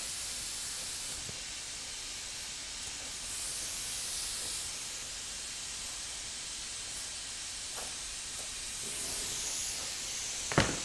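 Scissors trimming resin-soaked carbon fibre twill cloth: quiet, crisp shearing in stretches over a steady hiss, with one sharp click near the end.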